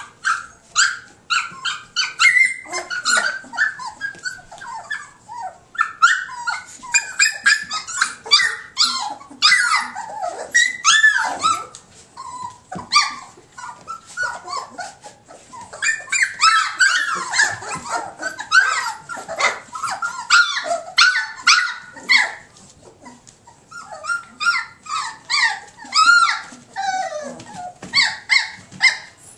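A litter of young standard poodle puppies whining and yipping: many short, high-pitched cries that bend in pitch and overlap one another, with a quieter lull about halfway through.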